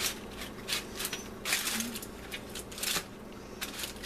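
Aluminium foil crinkling and rustling in irregular short bursts as a hand pulls at a foil-wrapped rack of ribs.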